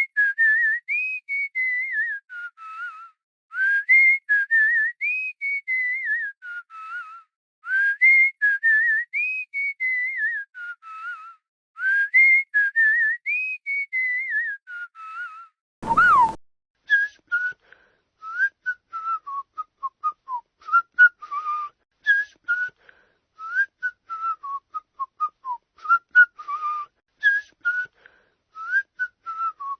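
Human whistling: a person whistles the same short rising-and-falling phrase over and over, about every four seconds. A brief click about halfway through, then quicker, choppy whistled notes at a slightly lower pitch.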